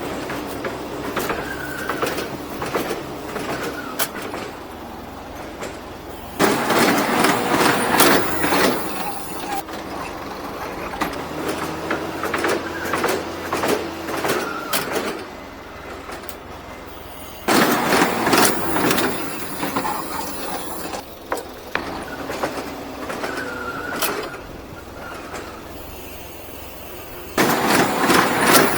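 A truck-mounted ladder lift at work: the truck's engine running steadily, with three loud noisy stretches of a few seconds each, about ten seconds apart, and occasional squeals and clanks from the lift.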